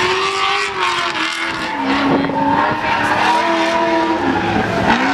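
Drift cars running on the track, engines revving up and down with tires squealing.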